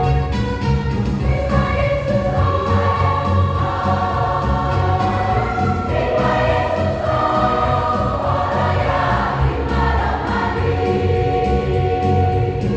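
Church choir singing a gospel song in several voices over an accompaniment with a steady beat in the bass.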